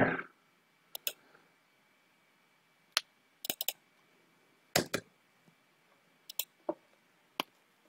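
Scattered clicks of a computer keyboard and mouse: a dozen or so isolated keystrokes and clicks in small groups, with a faint steady high-pitched hum underneath.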